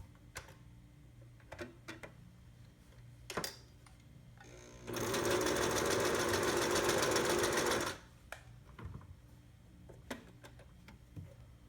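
Singer Touch & Sew 756 sewing machine running for about three seconds in the middle, stitching at a steady speed. A few light clicks and knocks come before and after the run.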